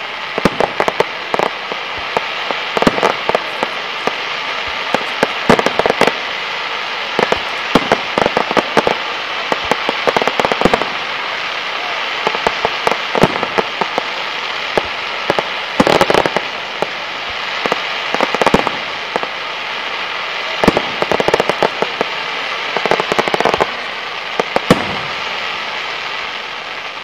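Aerial fireworks crackling: a dense, steady crackle and hiss with many sharp pops, dying away near the end.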